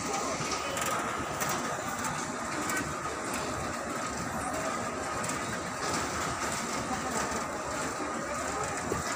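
Airport baggage carousel running: a steady mechanical rumble from the moving slat conveyor as suitcases ride on it, with a faint steady high tone and a few light knocks.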